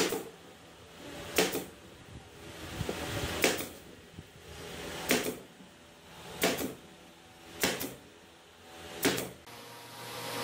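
Pneumatic brad nailer firing into a wooden cabinet panel, seven sharp shots spaced one to two seconds apart as it is moved along the edge.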